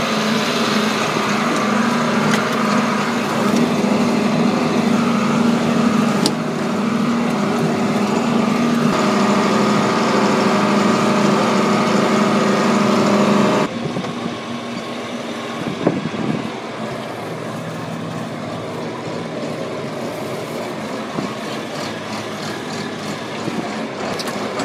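John Deere 4440 tractor's turbocharged six-cylinder diesel engine running steadily under load while pulling a rake; about 14 seconds in the sound drops suddenly in level and runs on more quietly.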